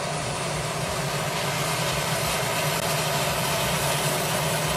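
Single-engine turboprop airplane's engine running steadily: a constant turbine whoosh and hiss over a low, even drone, with no rise or fall in pitch.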